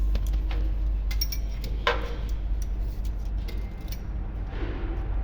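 Light metallic clinks and clicks, several in quick succession with one louder clank about two seconds in, over a steady low hum.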